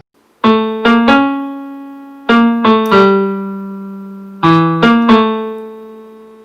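Piano playing a short phrase in three groups of three notes; each note is struck sharply and rings on, fading slowly.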